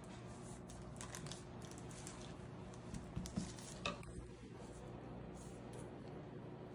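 Faint scraping and light clicks of a metal ice cream scoop digging into a paper carton of ice cream and pressing the ice cream onto a cookie, with a few sharper taps about three to four seconds in.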